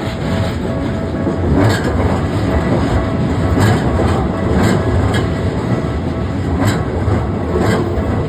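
A train passing close by, with a steady heavy rumble and irregular sharp clacks as the wheels cross the rail joints.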